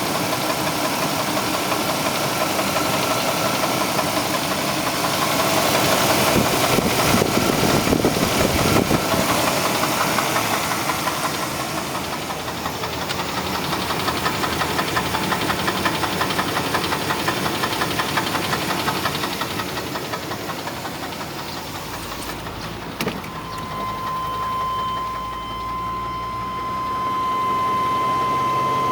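1996 Chevrolet Blazer's 4.3-litre V6 running with a steady, rhythmic knock from the bottom end at the oil pan, which the owner takes for a damaged crankshaft bearing; the engine still holds oil pressure. It grows louder for a few seconds about six seconds in. Near the end there is a sharp click, then a steady high tone under the engine.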